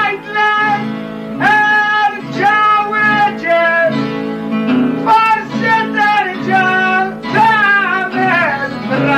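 Maltese għana folk music: plucked guitars with a high singing voice holding long notes that slide and bend between pitches.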